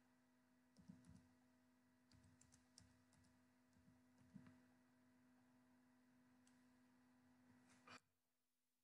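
Faint, scattered clicks of a computer keyboard as digits are typed, over a low steady hum that cuts off suddenly near the end.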